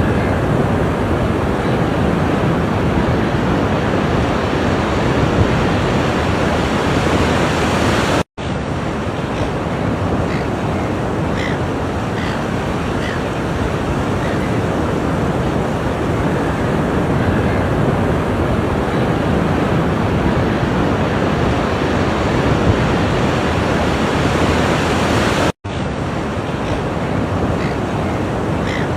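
Ocean surf washing steadily on a shore, a continuous rush of breaking waves, cut by two momentary dropouts about 8 seconds in and near the end.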